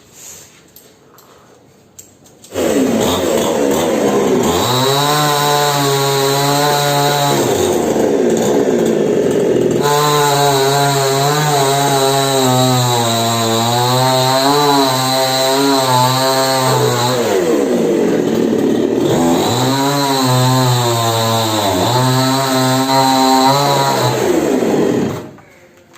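Chainsaw starting about two and a half seconds in and running at high revs, its pitch rising and falling. It drops to lower revs twice, then cuts off about a second before the end.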